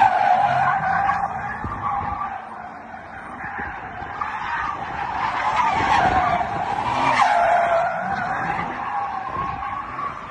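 Car tyres squealing in a continuous drift, the squeal wavering up and down in pitch; it eases off a few seconds in and swells again about halfway through.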